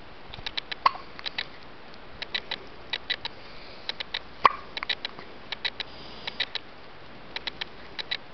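Hiccups: two sharp ones about a second in and about four and a half seconds in, among many faint quick clicks.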